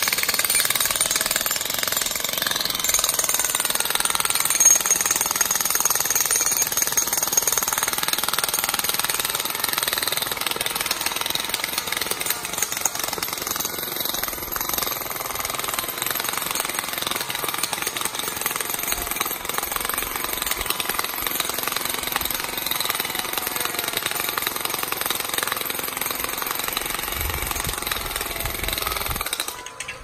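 Handheld jackhammer hammering continuously into rocky ground, stopping just before the end.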